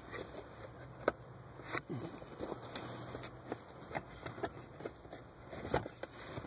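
Plastic air duct and carpet being handled under a car's dashboard: scattered light clicks and knocks of hard plastic with rubbing between them, the sharpest knocks about a second in and near the end.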